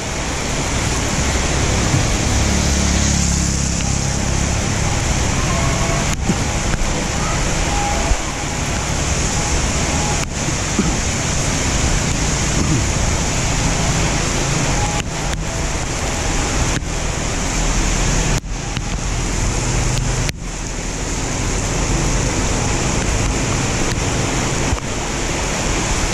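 Heavy rain pouring onto a flooded paved street: a loud, steady hiss, with a low rumble underneath.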